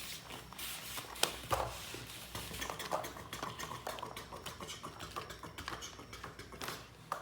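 Irregular light clicks and taps of toys being handled: a toy tractor and toy animals knocking together.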